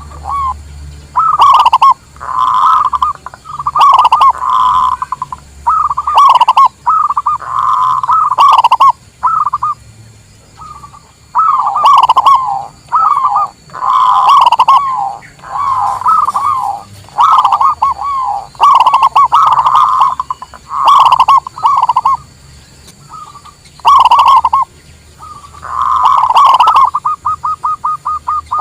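Zebra doves (perkutut) cooing: a string of loud, rapidly repeated staccato cooing phrases with short pauses between them, ending in a fast run of quick notes near the end.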